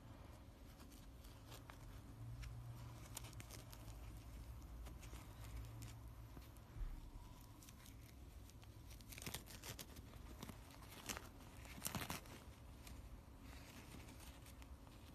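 Faint handling and tearing of a disposable mask's nonwoven fabric layers being pulled apart, with scattered small crinkles and two louder tearing bursts in the second half.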